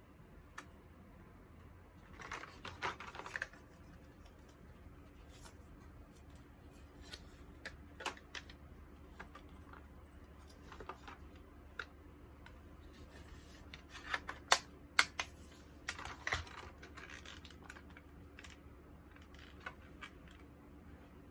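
Hands unpacking and handling packaging and study materials: scattered sharp clicks and taps with two spells of rustling, one a few seconds in and a louder one about two-thirds of the way through that holds the sharpest clicks.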